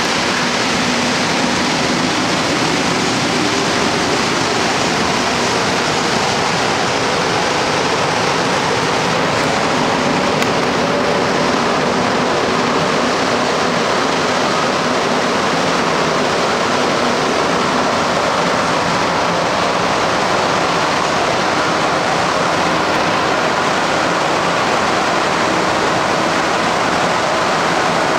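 Inside a Montreal Métro MR-63 rubber-tyred car in motion: a steady rushing noise from the tyres and running gear, with faint motor whines that slowly shift in pitch.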